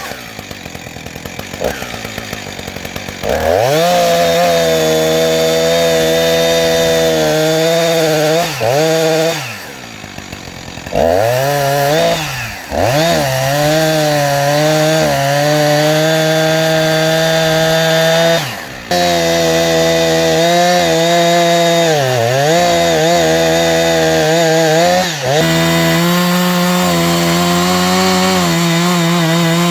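Husqvarna 359 two-stroke chainsaw idling, then throttled up about three seconds in and running hard under load as it rips lengthwise along a pine log. The revs dip briefly several times, and about ten seconds in they fall back toward idle for a moment.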